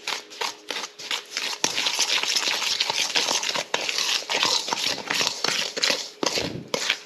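Butter, coconut oil and sugar being creamed together in a mixing bowl: regular scraping strokes, about four a second, then a few seconds of fast continuous beating, with separate strokes again near the end.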